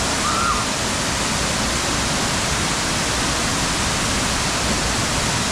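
Waterfall pouring steadily: a constant, dense rush of falling water.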